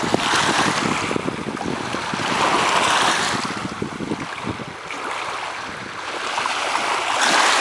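Small freshwater lake waves washing in over a pebble beach, the water hissing and crackling through the stones. The sound swells and eases as each wave comes in, loudest about three seconds in and again near the end.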